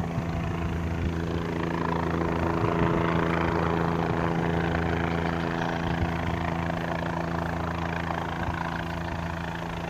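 State police helicopter flying overhead, its rotor and engine making a steady drone that grows a little louder in the middle and eases slightly near the end.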